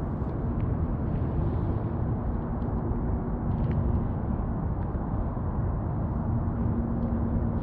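Steady low outdoor rumble with the faint whir of a Shimano Stradic spinning reel being cranked to retrieve a lure, and a few light clicks.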